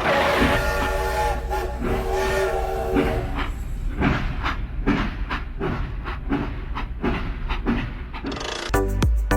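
Train horn sounding a steady chord for about three seconds, followed by the regular clickety-clack of train wheels over rail joints, about two to three clicks a second. Music comes back in near the end.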